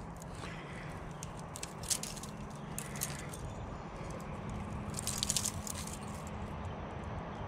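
Small sharp clicks and rattles from a fishing rod and line being handled: a single tick about two seconds in, another about a second later, and a quick cluster a little past the middle, over a steady low hum.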